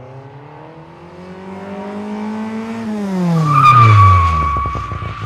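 Car engine climbing in pitch as it accelerates, then dropping steeply in pitch as it passes. A steady high squeal sits over the loudest part, and the sound fades with a rapid crackle.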